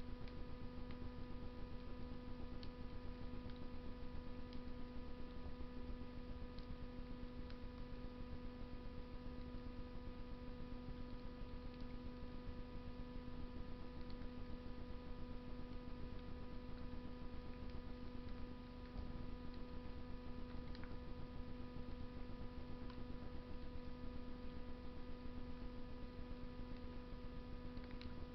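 Wood fire burning in a Russian masonry stove, with scattered faint crackles over a steady electrical hum that is the loudest thing heard.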